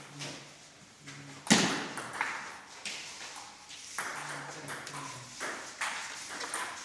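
Table tennis rally: sharp clicks of the ball struck by rubber paddles and bouncing on the tabletop, coming irregularly about once a second, the loudest about a second and a half in.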